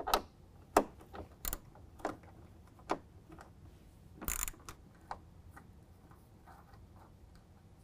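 Small ratchet wrench with a 7 mm socket loosening a fender flare bolt: scattered sharp clicks and taps, about one every half second to second, with a longer scraping rattle about four seconds in.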